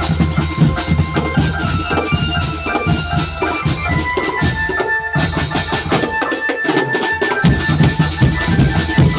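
Drum band playing: steady drum beats under a melody of held high notes moving step by step. The low drums drop out for about a second and a half past the middle, then come back in.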